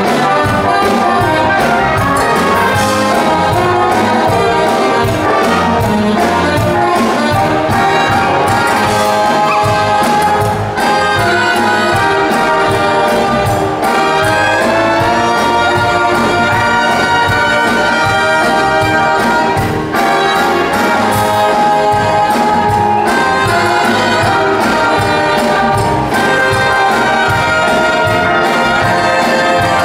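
Lively brass-led orchestral music with a steady beat.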